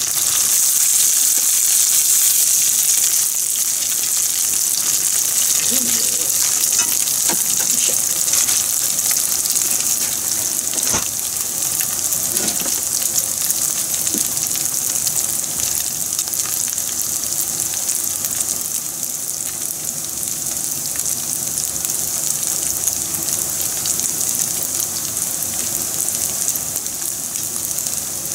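Battered squid rings deep-frying in oil in a frying pan: a steady, high sizzle of bubbling oil, loudest in the first few seconds as the last ring goes in, then settling a little lower.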